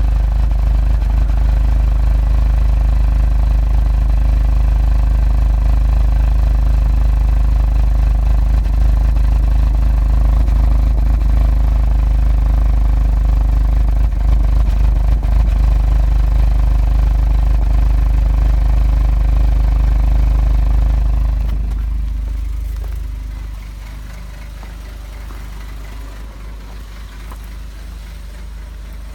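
Car engine idling rough, which the owner suspects is a misfire; it logs fault code P3008 after earlier camshaft-position codes, all of which appeared after a service in which the water pump, pulleys and ancillary drive belt were changed. About three-quarters of the way through the sound becomes much quieter and stays lower.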